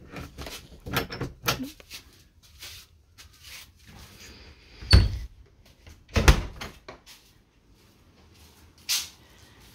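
A wooden door being opened and pushed shut: clicks and rattling, then two dull, heavy thumps about a second apart near the middle.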